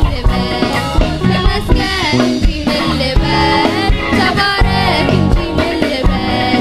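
Gospel song with singing over a steady drum-kit beat and guitar.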